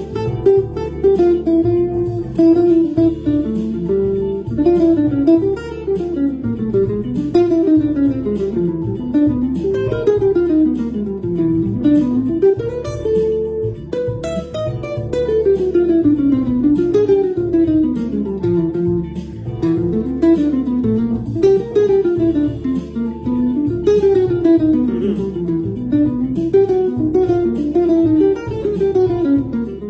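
Hollow-body archtop electric guitar playing fast improvised single-note jazz lines that run up and down in quick scalar runs. Underneath is a backing track holding a single chord.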